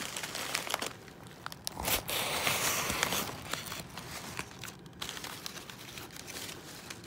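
Crumpled newspaper packing crinkling and rustling as it is pulled out of a cardboard box, with a denser, louder rustle between about two and three seconds in.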